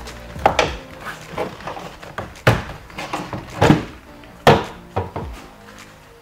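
Sharp plastic knocks and clacks, about five spread over a few seconds, as a Fiat Punto's door trim panel is pried at its retaining clips, with faint background music underneath.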